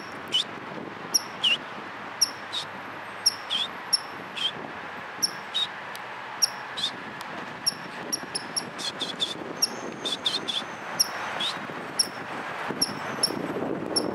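American red squirrel calling with short, high, squeaky chirps, about one a second, each dropping quickly in pitch, with a few quicker runs of notes past the middle. A soft rustling rises near the end as the squirrel comes right up to the microphone.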